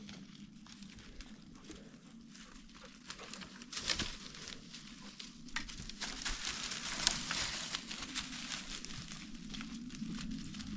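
Footsteps rustling and crunching through dry forest floor litter and brush, with irregular crackles and small snaps. It grows busier and louder from about three and a half seconds in.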